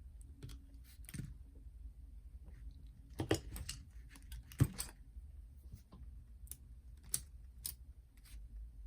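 Irregular small clicks and taps of a screwdriver and screws being worked out of a boombox's cassette deck, with two louder clicks near the middle.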